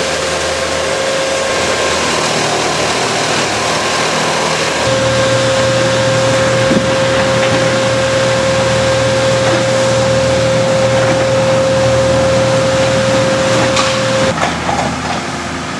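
An engine-driven machine running steadily at constant speed, with a strong hiss. It settles into a steady hum about five seconds in and cuts off near the end.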